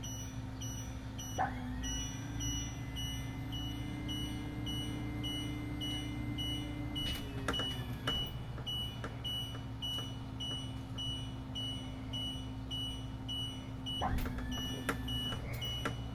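Power Gear hydraulic leveling jacks extending during auto-leveling: a steady hum from the pump with the idling engine underneath, and a short warning beep repeating steadily. A higher whine comes in about a second and a half in and cuts off with clicks around seven seconds, then comes back briefly near the end.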